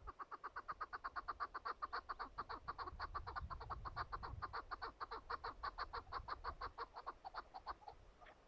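Chukar partridge calling: a rapid, even series of clucking chuk notes, about eight a second, which stops shortly before the end.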